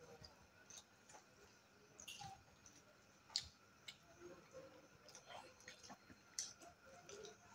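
Faint eating sounds of people eating rice and greens by hand: scattered mouth clicks, small wet smacks and chewing, with one sharper click about three and a half seconds in.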